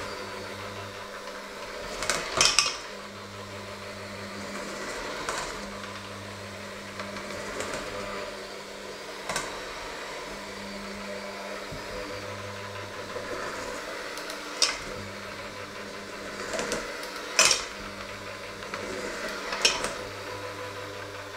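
Electric hand mixer running, its beaters churning a thick mixture in a stainless steel bowl, with the motor hum dropping out briefly now and then. Sharp metallic clacks every few seconds as the beaters strike the bowl, the loudest near the start and near the end.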